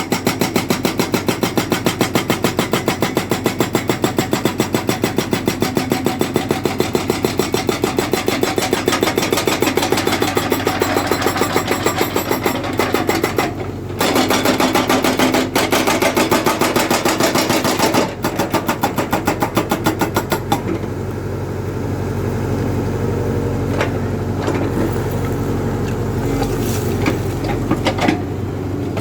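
Excavator at work with a fast, regular pounding pulse for about twenty seconds, broken off briefly twice. It then settles into a steadier engine drone.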